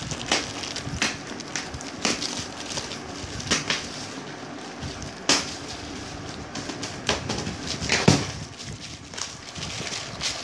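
Thin clear plastic bag crinkling and rustling in irregular bursts as hands handle and unwrap a laptop case, with the sharpest crackles about five and eight seconds in.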